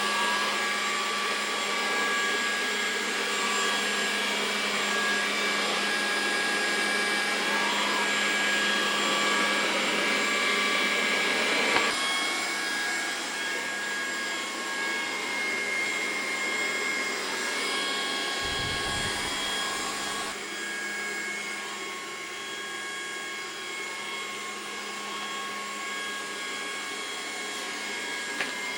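Trifo Ollie robot vacuum running: the steady whine of its suction fan over a wash of motor and brush noise, with one sharp click about twelve seconds in.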